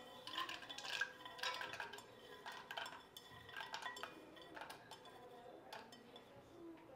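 Peanuts and garlic cloves pushed by hand off a ceramic plate into a glass pot of hot oil: faint, scattered clicks and taps of the nuts against the plate, thinning out after about three seconds.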